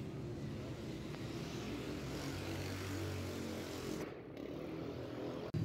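City street traffic noise with a motor vehicle engine running, growing louder about two to three seconds in. The sound breaks off abruptly near the end.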